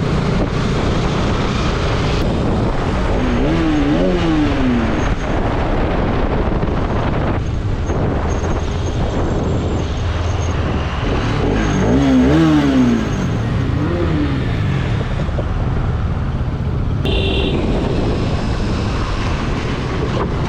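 Motorcycle engine running at riding speed under steady wind and road noise. The engine note climbs and drops, as when revving and shifting gear, around four seconds in and again from about twelve to fourteen seconds. A short beep comes about seventeen seconds in.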